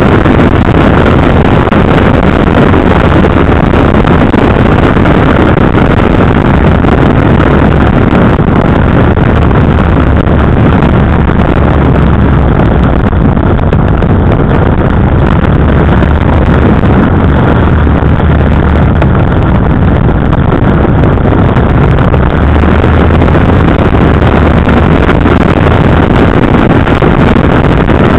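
KTM 990 Adventure's V-twin engine running steadily as the bike rides along, heard from an on-board camera with wind buffeting the microphone. Loud and even, with no clear revs or pauses.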